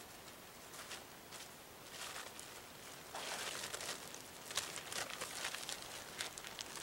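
A lightweight green tarp being handled, unfolded and shaken open: a few faint crinkles at first, then about three seconds in a louder, busy crinkling rustle with sharp crackles as the sheet is opened out.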